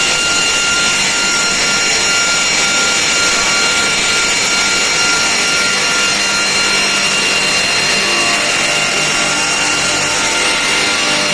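Pass-through multi-blade circular saw machine running steadily and sawing slab wood into edged boards, a continuous loud machine noise with a steady high whine from the blades.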